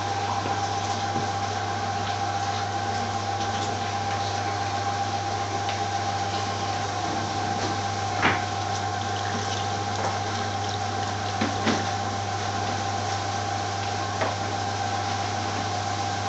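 Steady mechanical hum and hiss of commercial kitchen machinery, with a few light clicks or knocks.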